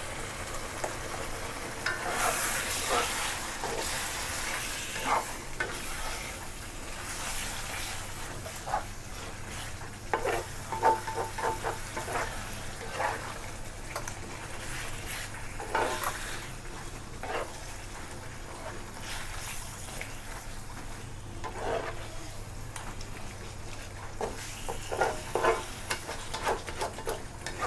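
Pork frying in curry paste in a hot pan, sizzling steadily, just seasoned with fish sauce. A spatula scrapes and stirs against the pan every few seconds.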